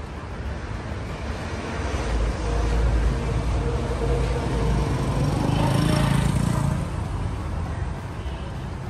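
A motorcycle engine passing close by, growing louder to a peak about six seconds in and then fading, over street traffic noise.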